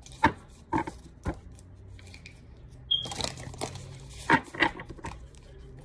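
Tarot cards handled and laid down on a cloth-covered table: a few sharp, irregular taps and slaps of the cards.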